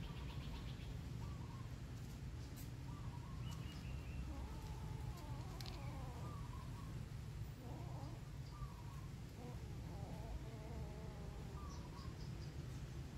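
Cats eating rice off plates: a few faint clicks of chewing and plate contact, with soft wavering animal calls through the middle, over a steady low hum.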